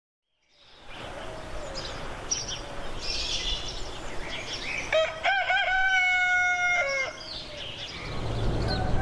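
A rooster crows once about halfway through, a call of about two seconds that wavers at the start and ends on a long held note. Small birds chirp before it.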